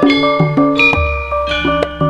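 Javanese jaranan gamelan ensemble playing a quick, even run of ringing metallic gong-chime and metallophone notes, with a deep gong stroke sounding about a second in and ringing on.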